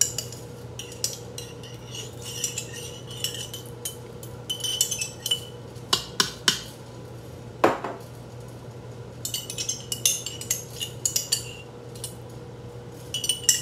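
A long metal spoon scraping and clinking inside a glass mason jar, digging out home-canned kidney beans, in clusters of quick scrapes with one sharper clink about halfway through. A steady low hum runs underneath.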